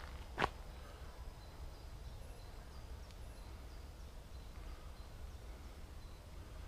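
Outdoor park ambience: a low steady rumble with faint, short, high bird chirps scattered throughout. A single sharp click comes about half a second in.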